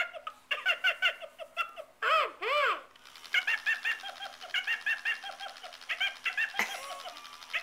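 Tickle Me Elmo plush toy laughing in rapid, high-pitched, evenly repeated 'ha-ha-ha' runs, with a couple of rising-and-falling 'ooh' sounds about two seconds in.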